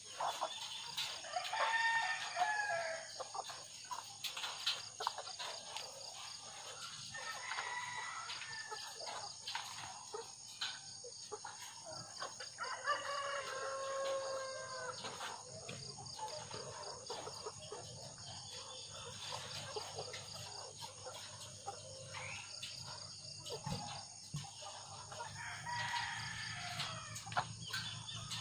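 Chickens calling, with several drawn-out calls about two, eight, thirteen and twenty-six seconds in, the one near thirteen seconds the longest, and short clucks between them.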